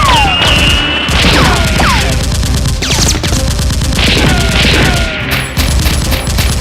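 Rapid-fire gunshot sound effects with falling, whistle-like zaps, over background music with a steady low beat.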